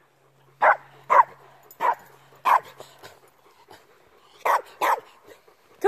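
A dog barking: six short barks, a run of four and then a quick pair near the end.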